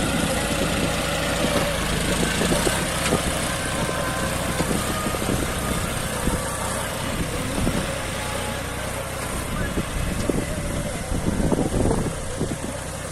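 John Deere 5050D tractor's 50 hp diesel engine running steadily under load, with wind buffeting the microphone.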